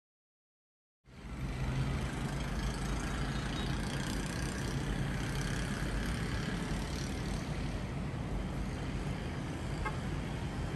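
Steady wash of distant road traffic heard from high above the street, starting about a second in after silence.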